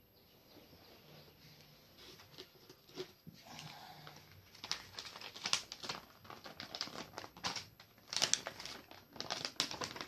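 Packaging crinkling and rustling as it is handled, faint at first and getting busier and louder about halfway through.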